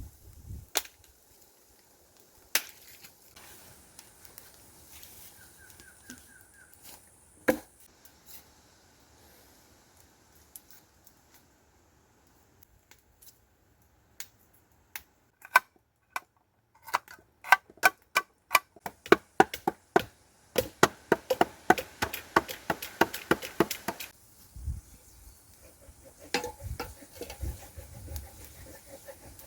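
Sharp knocks and clicks: a few scattered ones, then a fast run of them from about halfway in that stops a few seconds before the end.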